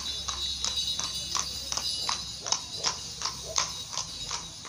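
Horse pulling a carriage, its hooves clip-clopping on the paved street in an even rhythm of about three steps a second.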